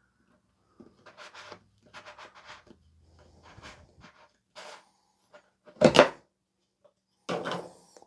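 Plastic clicks and knocks of a front-load washer's detergent dispenser drawer being pulled out and a detergent jug and its cap being handled, with one louder knock about six seconds in.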